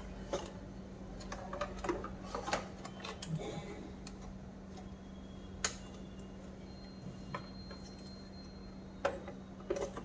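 Irregular light plastic clicks and knocks from handling the plastic housing, circuit board and wiring of a Karcher WD6 Premium wet-and-dry vacuum cleaner being reassembled, with a sharper click about halfway through and a short cluster of knocks near the end as the housing is lifted into place.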